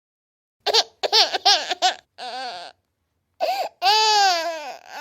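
Baby crying in short high-pitched sobbing bursts, then a breathy gasp, and near the end a long wail that slowly falls in pitch.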